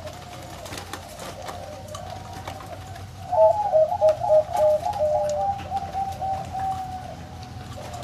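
Zebra dove (perkutut) singing: a steady run of cooing notes, then from about three seconds in a louder burst of rapid, clipped coos lasting about two seconds before the song settles back.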